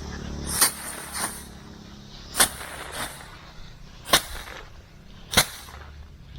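A series of about six sharp knocks or slaps at uneven intervals, roughly one every second or so. A low hum stops within the first second.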